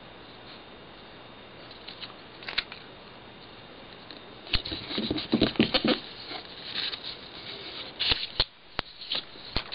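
Paper sheets being handled on a tabletop: rustling, sliding and light taps with a few sharp clicks, starting about halfway in.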